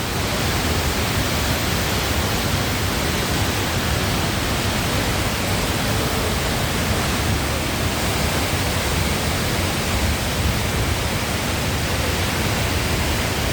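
Tall, powerful waterfall crashing into its pool, a loud steady rush of falling water.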